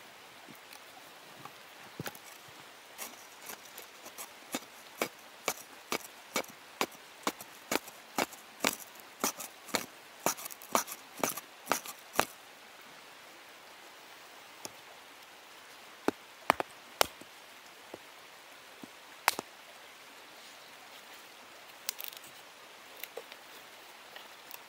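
Sharp, dry knocks of an axe chopping at a piece of wood. They come in a quick run of about two to three a second for some ten seconds, then a few single blows follow later.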